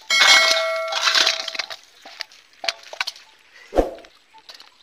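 A sudden metallic clang with a bell-like ring that fades over about a second and a half, followed by a few light clicks and scrapes and a dull thump near the end.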